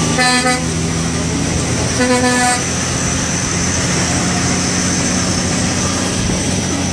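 A truck horn sounds two short blasts about two seconds apart, over the steady low drone of a tractor-trailer's engine heard from inside the cab.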